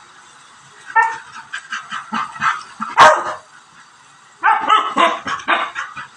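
A dog barking and yipping in two bouts of quick, high barks, the second beginning about four and a half seconds in, with one sharp, loudest bark about three seconds in.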